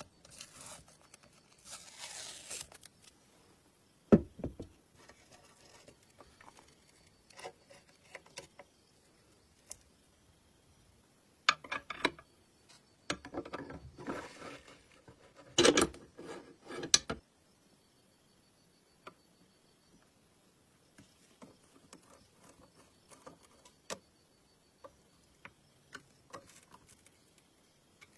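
Scattered handling noises of tools and parts being worked: short scrapes and rustles in clusters, with sharp knocks about four seconds in and in a busy stretch around the middle, then scattered small clicks.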